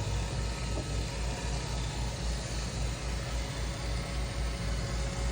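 Robot vacuum running: a steady motor hum with a low, even throb.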